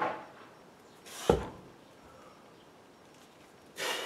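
A man's sharp, forceful exhalations, one with each rep of heavy 32 kg kettlebell snatches, about two seconds apart. The loudest comes about a second in with a hard punch.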